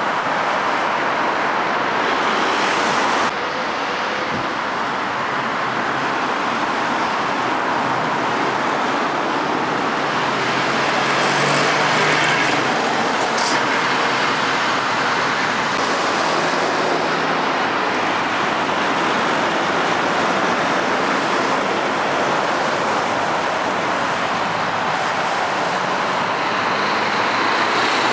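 Steady road traffic: lorries and cars driving round a motorway junction roundabout, with diesel truck engines running and tyre noise. The sound drops abruptly about three seconds in, and a short hiss comes about halfway through.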